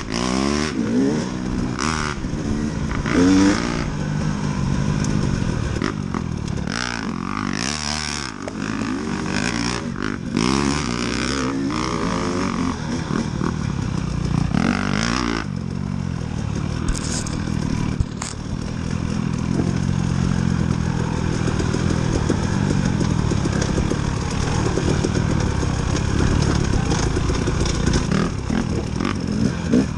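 KTM 300 two-stroke dirt bike engine revving up and falling off again and again, with the bike clattering over rough ground. It runs more steadily in the second half.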